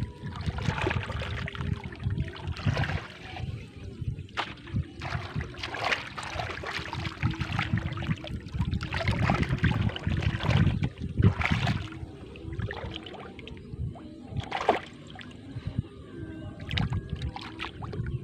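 Hands and feet splashing and sloshing in shallow muddy water in irregular surges as fish are groped for and grabbed, with a few sharper splashes.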